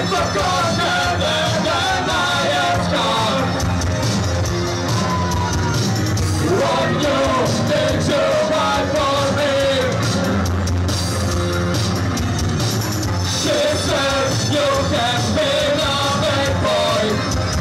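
Loud live noise-pop band playing: distorted electric guitar, bass and drums with a sung vocal line over them, steady throughout.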